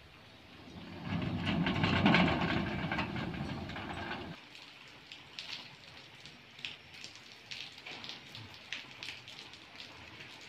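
A large steel sliding gate is pushed along its track, rumbling and rattling for about three seconds before stopping abruptly. Faint, scattered footsteps on wet concrete follow.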